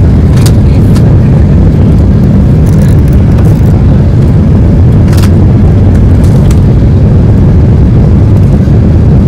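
Loud, steady low rumble of engine and airflow noise inside the cabin of a Boeing 777-300ER on its landing approach, with a few brief clicks.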